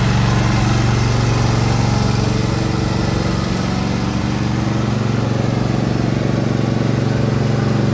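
Air-cooled Briggs & Stratton Intek V-Twin petrol engine of a Husqvarna R 214TC rider mower running steadily.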